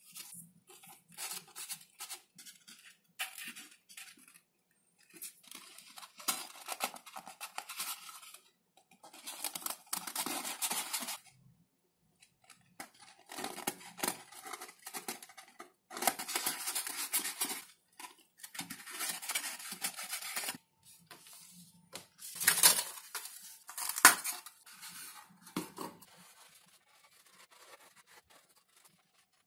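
Hand work on XPS foam sheet: a series of scraping strokes, each lasting a second or two with short pauses between, and a couple of sharp clicks and knocks from tools near the end.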